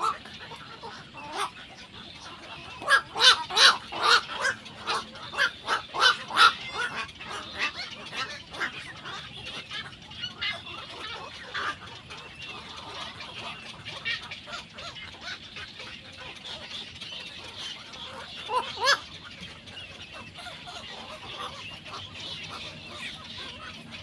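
Egrets calling at the nest: a run of short, sharp calls about three a second starting about three seconds in, tapering off, then another brief burst of calls near the end.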